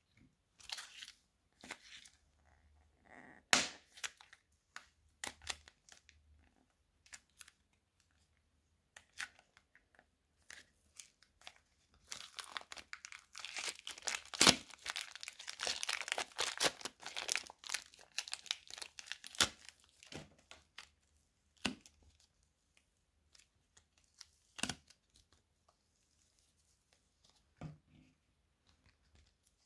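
Soft modelling clay being stretched and pulled apart by hand, with small crackling, tearing sounds. The crackling is densest and loudest in the middle stretch, with sparse clicks before and after.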